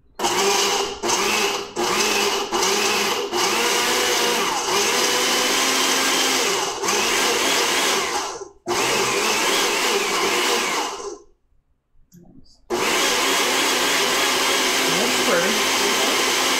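Inexpensive countertop blender puréeing a thick herb-and-nut dressing: pulsed in about four short bursts, then run steadily, with a brief stop about eight seconds in and a longer pause a few seconds later before it starts again.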